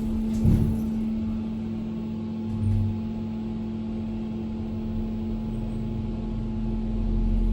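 Passenger lift travelling up, heard from inside the car: a steady electrical hum with a low rumble that grows louder near the end. There are two soft thumps, at about half a second and near three seconds in.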